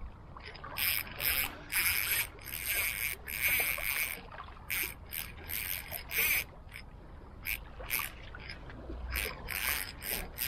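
Fishing reel working during a fight with a hooked fish: short, irregular bursts of high-pitched mechanical noise, about one or two a second.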